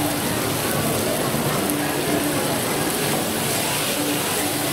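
Pad Thai rice noodles and bean sprouts sizzling in a hot wok as they are stir-fried, a steady frying hiss.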